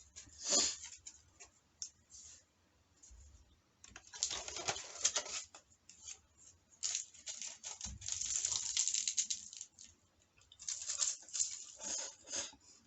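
Close-up eating noises: several bursts of rapid crackling and clicking, a few seconds apart, with quiet gaps between.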